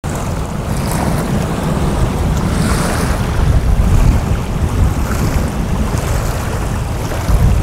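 Wind buffeting the microphone: a steady, gusting low rumble without any clear tone.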